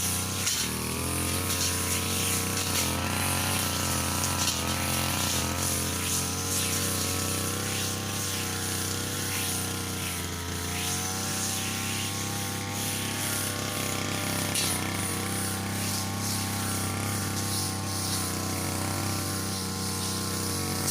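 Motorised brush cutter running at high speed while cutting grass, its engine pitch wavering slightly up and down under load.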